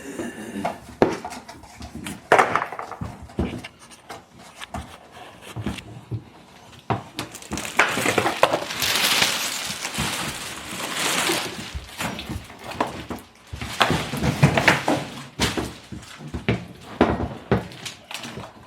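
Cardboard box and plastic packaging being handled and pulled apart: rustling and scraping with scattered knocks and thuds, the rustling heaviest about halfway through.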